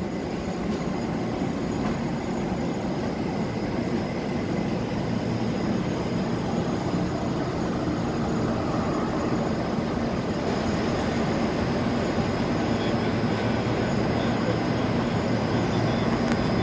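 Izmir Metro train running beside the platform: a steady rumble of wheels on rail, with a few faint high steady tones above it.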